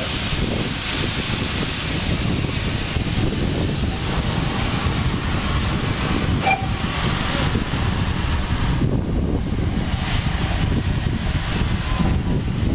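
Steam locomotive blowing steam from its open cylinder drain cocks: a loud, steady hiss with a low rumble underneath, easing slightly in the last few seconds.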